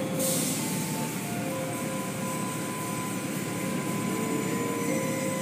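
Automatic tunnel car wash running, heard from inside a car: a steady rush of water spray and whirring cloth brushes and swinging cloth strips, with no sharp knocks.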